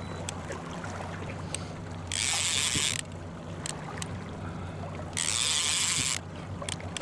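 Trolling reel ratcheting in two bursts of about a second each as a hooked fish is fought on a long line, over the steady low hum of the boat's engine.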